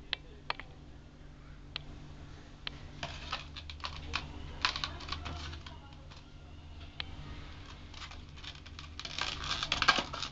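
Stiff clear plastic blister pack being handled and gripped: scattered clicks and crinkles, thickening into a burst of crackling about nine seconds in.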